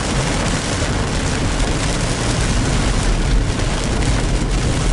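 Car driving on a rain-soaked road: steady hiss of tyres on wet pavement and rain, over a low road rumble.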